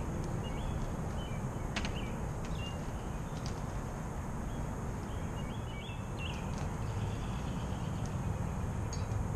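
Outdoor ambience: a steady low rumble with small birds chirping now and then and a few faint sharp clicks.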